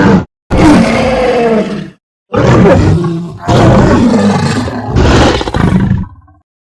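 Cryolophosaurus creature sound effects: a string of loud dinosaur roars and growls with bending pitch, four or five separate calls. Each one is cut off sharply into silence, and the last call tails off near the end.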